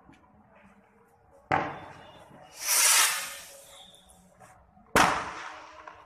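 Fireworks going off: a sharp bang about one and a half seconds in, a loud hissing burst around three seconds, and another sharp bang near five seconds, each fading away.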